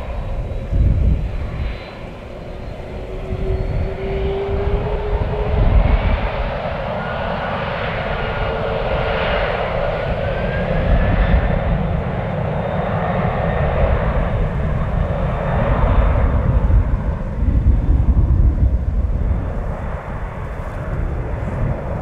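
Boeing 767's twin turbofan engines running as the airliner lines up and starts its takeoff roll: a loud rushing jet noise with faint whining tones that rise slowly, over a low rumble.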